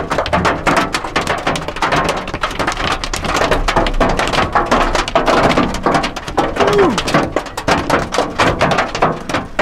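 Hail pelting the expedition truck in a sudden storm: a dense, continuous clatter of many rapid hailstone hits.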